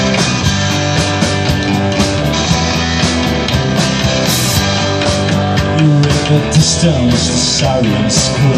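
Rock band playing live: electric guitars, electric bass and drum kit.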